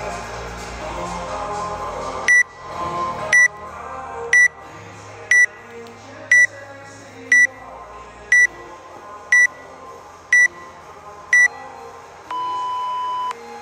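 Workout countdown timer beeping: ten short high beeps about one a second, then a longer, lower beep that marks the start of the workout. Background music plays underneath.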